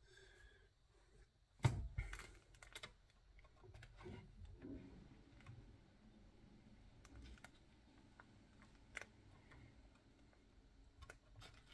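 Scattered light clicks and taps of plastic power-supply cable connectors being handled and pushed at their sockets. One sharper knock comes nearly two seconds in, followed by a few quicker clicks.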